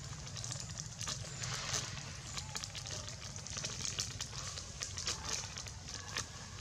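Irregular crackling clicks over a steady low hum.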